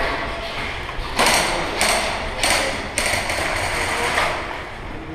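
Rapid mechanical ratcheting in short bursts, each about half a second long and coming about one and a half times a second from about a second in.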